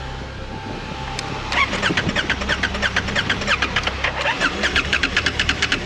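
Motorcycle engine turning over with a rapid, even pulse of about eight beats a second, starting about a second and a half in, over a low steady hum.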